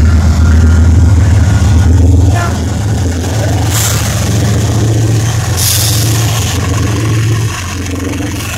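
CN diesel-electric locomotive's engine running with a loud, steady low rumble as it passes close by. Two short hisses sound about four seconds and six seconds in.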